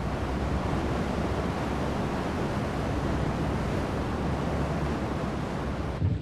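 Steady sea ambience of waves and wind with a low rumble beneath, cutting off abruptly near the end.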